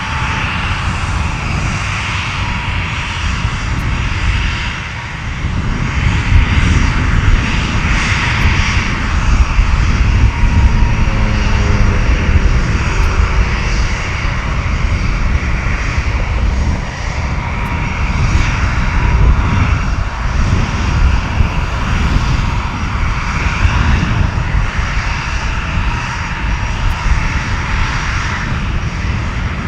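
Vought F4U Corsair's Pratt & Whitney R-2800 radial piston engine and propeller on the takeoff run, a loud, steady rumbling drone that grows louder about six seconds in as power comes up.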